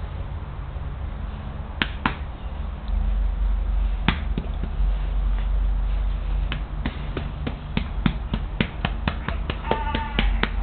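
Pit bull nibbling and mouthing another pet: a run of sharp mouth clicks, few at first and coming quickly in the second half. A short high cry comes near the end, over a steady low hum.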